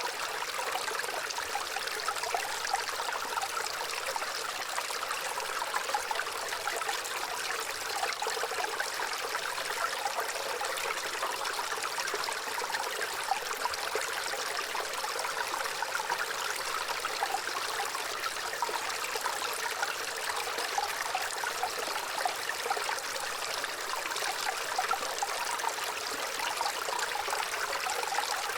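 Gently running water trickling and babbling in a steady, even stream, with little low rumble.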